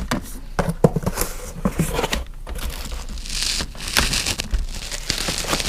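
Packaging crinkling and rustling with scattered clicks and knocks as knives are unwrapped and pulled from their box, with a longer burst of rustling about three seconds in.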